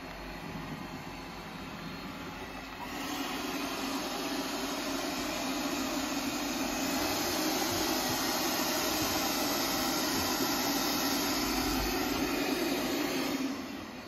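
ZOOZEE Z50 robot vacuum running in mopping mode, its suction fan whirring steadily. The whir gets louder about three seconds in and drops back shortly before the end.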